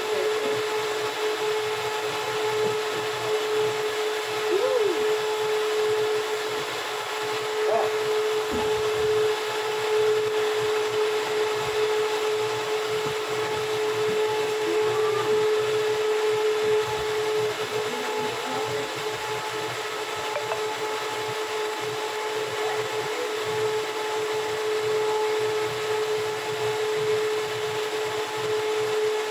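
Steady hum of a running machine with one constant whine held on one pitch, unchanged throughout.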